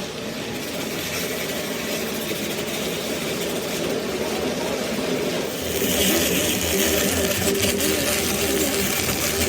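A motor or engine running steadily, with a louder hiss setting in about six seconds in.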